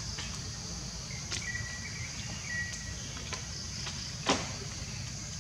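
Steady high-pitched drone of insects in the surrounding forest over a low wind rumble, with a faint thin whistle in the middle and a few small clicks, the sharpest about four seconds in.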